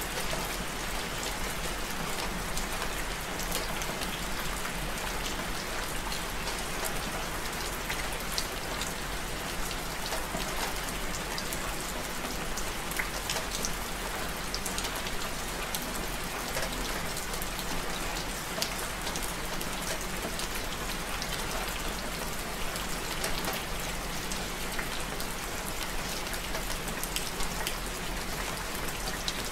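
Steady rain falling at night, an even hiss dotted with many sharp ticks of single drops hitting close by.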